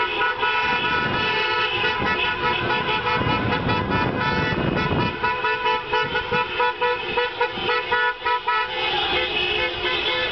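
Many car horns honking together in celebratory street honking, some held long and overlapping. Later they break into a quick run of short toots, about four a second.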